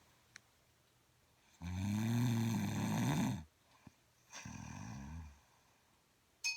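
A woman snoring heavily: one long, loud snore about a second and a half in, rising then falling in pitch, followed by a shorter, quieter snore.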